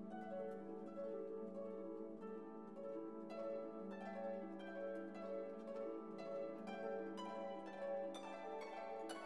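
Background music: a gentle instrumental piece of plucked, harp-like notes over a held low note.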